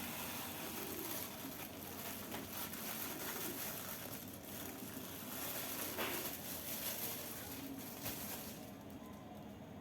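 Granulated sugar being poured into a blender jar: a steady grainy hiss with a few light clicks, which thins out near the end as the pour stops.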